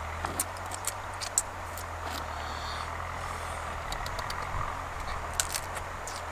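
Irregular sharp cracks and crunches of cooked crab shells being broken apart by hand and bitten, over a steady low background rumble.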